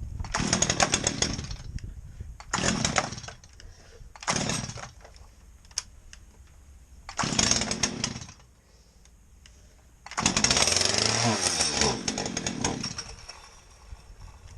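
Stihl MS211 35cc two-stroke chainsaw being pull-started, coming to life in five short bursts with gaps between them. The last and longest burst runs about two and a half seconds and falls in pitch as the engine dies.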